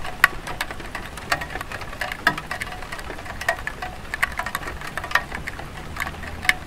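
Light rain on a clay tile roof: a steady hiss with irregular sharp drops tapping, several a second, a few of them louder.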